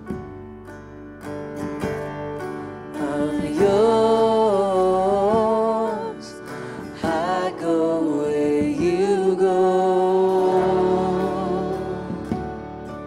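Live worship band playing a slow song: a man sings long, held notes over acoustic guitar and the band. It is quieter for the first three seconds, then swells.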